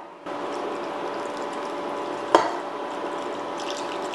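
Milk simmering with vermicelli in a nonstick pan, a steady hiss over a faint hum, with one sharp knock about two seconds in. Near the end, more milk is poured in from a jug.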